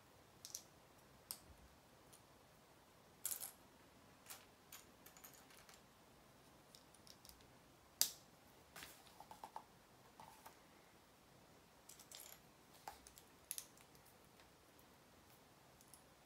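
Lego plastic pieces clicking and clacking as they are handled and pressed together, in irregular small clicks with one sharper clack about halfway through.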